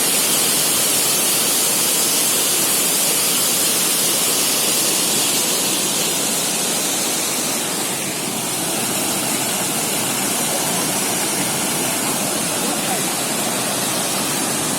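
Steady rush of falling water from a waterfall, loud and unbroken.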